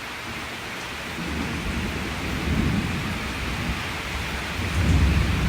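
Steady rain falling, with a low, uneven rumble that builds from about a second in and swells twice, the second time near the end.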